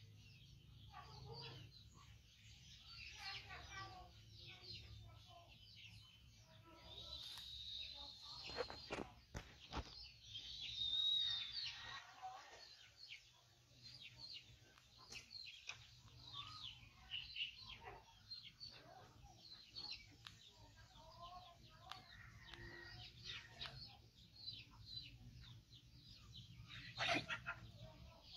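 Faint, scattered chirps and clucks of birds, with a few soft clicks.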